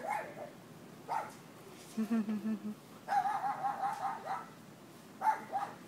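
Three-week-old French bulldog puppies yipping and whining: a few short cries, then a quick run of high, wavering yelps about three seconds in, and another short burst near the end.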